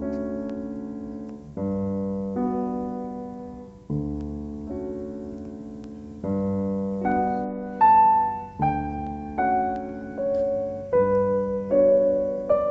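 Background piano music: slow chords struck every second or two, each fading before the next, with a higher melody coming in about halfway through.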